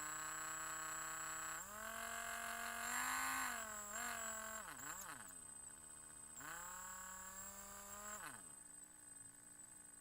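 Mini drill's electric motor whining, its pitch stepping up to a higher speed about a second and a half in, dipping and wavering around the fifth second, rising again and then winding down near the end. A thin, steady high whine runs alongside.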